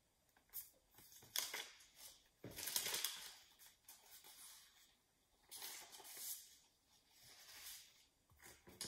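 Faint rustling and scraping of paper: sticky-note letter cards and a paper word strip being handled, pressed on and peeled off a wall, in a series of short scratchy sounds.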